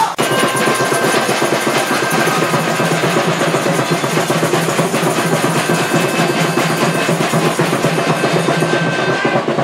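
Music with drums and percussion playing continuously at a steady level, with quick, even drum strokes throughout.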